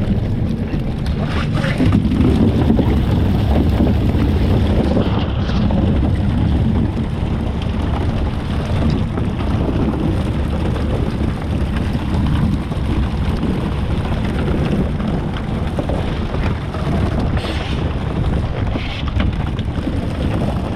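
Fishing boat's engine running steadily, with wind buffeting the microphone and water noise over it.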